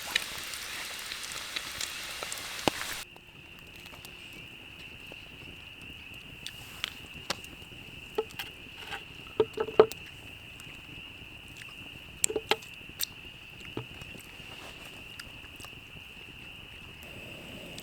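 For the first three seconds, food sizzles and fries in a pan. It cuts off abruptly. A steady high-pitched frog chorus follows, with scattered light clicks and taps.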